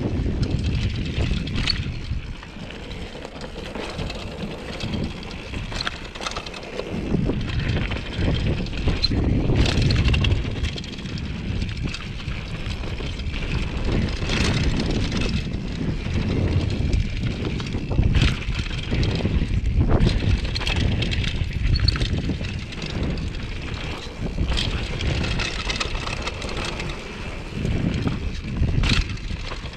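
2014 Giant Glory downhill mountain bike riding fast down a dirt trail: tyres rumbling over the ground, with frequent knocks and rattles from the bike over bumps, and wind on the microphone.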